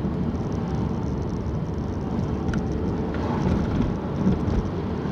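Steady road and engine rumble inside a moving car's cabin, the tyres running over a rough, patched road surface, with a couple of short knocks a little over four seconds in.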